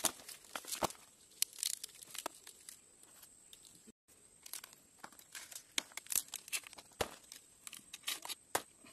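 Banana leaves rustling and crinkling as they are handled, with many small irregular clicks and taps. The sound cuts out briefly about four seconds in.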